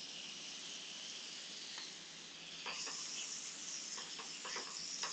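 Lamb tenderloins sizzling steadily in hot butter and oil in a sauté pan, with a few light taps of a utensil in the pan in the second half.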